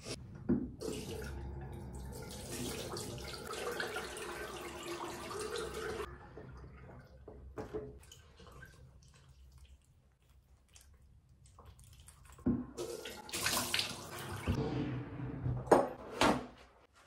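Bathroom sink tap running with water splashing, stopping about 6 seconds in; it runs again about 12 seconds in, for the face rinse after lathering. A few sharp clicks and knocks near the end.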